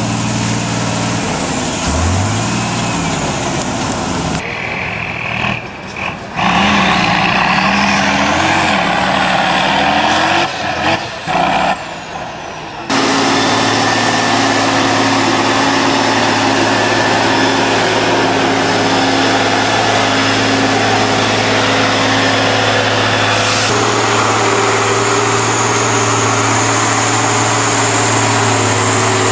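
Heavy trial trucks' engines working hard off-road. The engine note rises and falls and changes abruptly across cuts in the first half, then holds steady for the last fifteen seconds or so.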